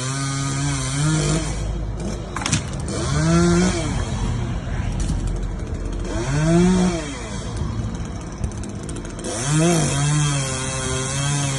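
Two-stroke chainsaw cutting wood at a steady pitch. In the middle the cut eases and the saw is revved up and let fall back twice. It then settles into cutting again near the end.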